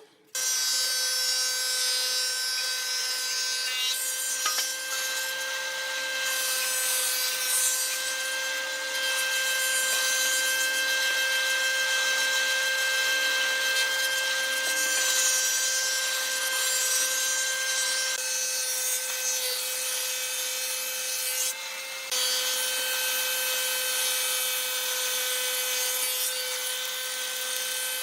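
Electric power tool running steadily on wood, a high motor whine over a hiss of material being worked. It dips briefly about three quarters of the way through, then carries on.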